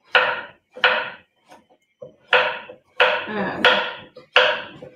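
Kitchen knife chopping zucchini on a wooden cutting board: steady strokes, about one every two-thirds of a second, each a sharp knock with a short ring after it.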